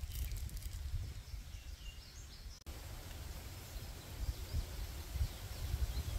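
Woodland ambience: a steady low rumble with a few faint bird chirps. The sound cuts out for an instant about two and a half seconds in.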